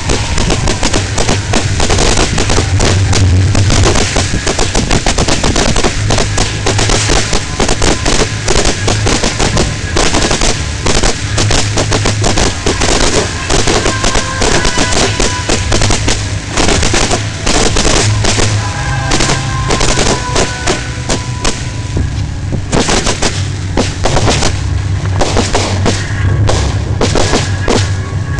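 Fireworks display heard at close range among the launch positions: a dense, continuous barrage of shells launching and bursting in rapid succession, loud throughout.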